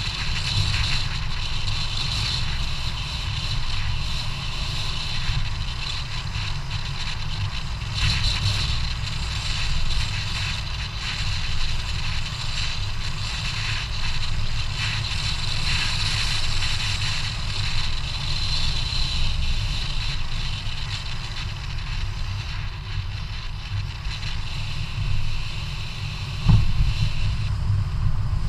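Wind buffeting the microphone of a camera mounted on a moving bicycle, over the hiss of tyres rolling on asphalt. A single sharp knock near the end, like the bike jolting over a bump.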